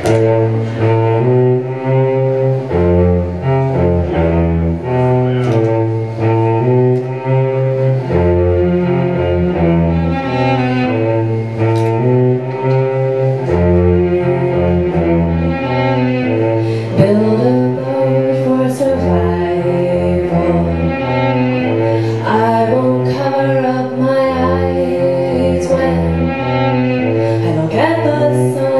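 Solo cello played live, an instrumental passage of a song: a repeating pattern of low held notes, with higher gliding notes in the second half.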